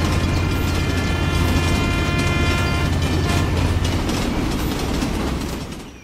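Battery-powered toy train running along its plastic track: a steady motor hum with many small clicks, fading out near the end.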